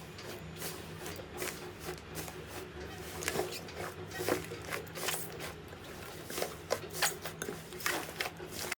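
Slime being squeezed and poked by hand, giving many short, irregular clicks and crackles over a faint steady hum, cutting off suddenly near the end.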